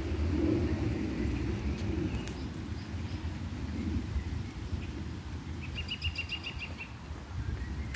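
Steady rain with a low, rumbling background, and a bird giving a quick run of about eight chirps about six seconds in.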